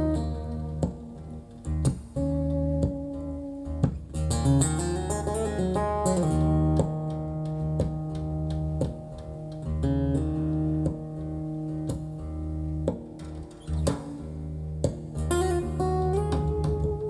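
A recorded song, instrumental: plucked guitar notes over a steady low bass line.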